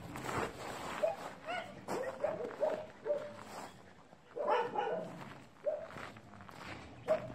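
Dogs barking: short barks come one after another at varying pitches, with the busiest run about four and a half seconds in.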